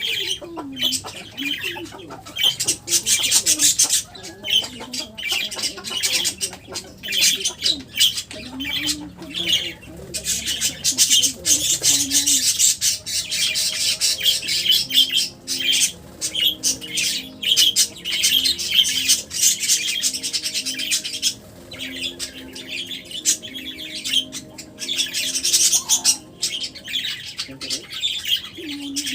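Many pet birds chirping and squawking in a steady, dense chatter, with some wing flapping; a low steady drone joins in about halfway through.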